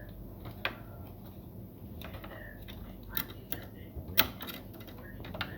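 A few irregular sharp clicks and light knocks over a low steady hum, the loudest about four seconds in: hard plastic and metal parts and tools being handled while the all-in-one computer is taken apart.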